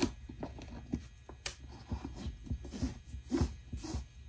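Soft rustles and small irregular clicks of hands handling the laces of a pair of leather sneakers, with a sharper click about one and a half seconds in.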